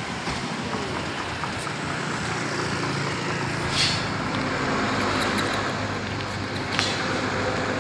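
Road traffic passing close by: cars and a motorcycle driving past, with engine and tyre noise and an engine hum that sets in about halfway through. Two brief sharp clicks, one in the middle and one near the end.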